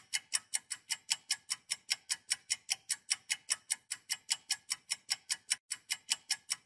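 Countdown timer sound effect: clock-like ticking, steady and even at about five ticks a second, marking the guessing time running out.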